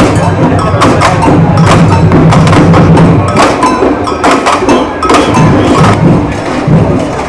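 Percussion played in the street: rapid, irregular wood-block and drum hits, with a steady low tone held under them for about the first three seconds.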